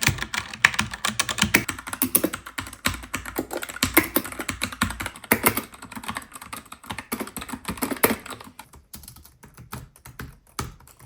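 Rapid typing on a Freewrite smart typewriter's keyboard, a dense run of key clicks that thins out to scattered keystrokes after about eight seconds.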